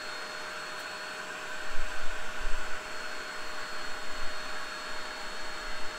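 Vax SpotWash Duo spot cleaner running: the steady rush of its suction motor with a faint whine, and a few low bumps about two seconds in.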